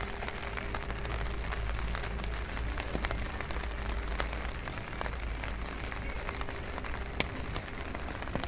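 Rain on a wet street: a steady hiss with scattered drip ticks over a low rumble.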